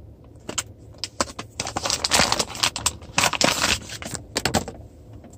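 Phone-case packaging being handled and opened: irregular crinkling and clicking rustles of the packaging, loudest in bursts about two seconds and three and a half seconds in.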